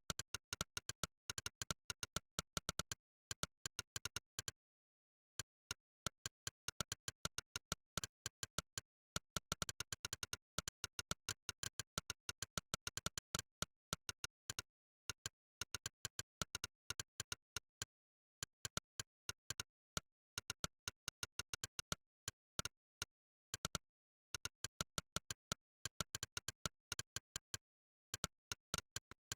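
Monkeytype's synthetic "click" keypress sound effect, one click per key, sounding in quick runs of rapid typing with a few brief pauses between words and phrases.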